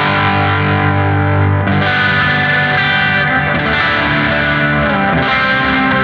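Electric guitar with humbucker pickups played through the NUX MG-30's Morning Drive overdrive, a Morning Glory-style drive model, giving a lightly distorted tone. Sustained, ringing chords change a few times.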